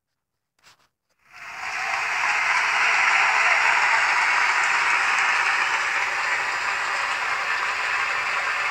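Dense applause from many hands that swells in about a second and a half in, after a silent start, and then holds steady.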